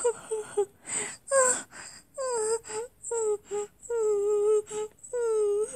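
Crying voiced for a cartoon wolf: a string of high whimpering sobs, each a short wavering whine, the later ones drawn out longer.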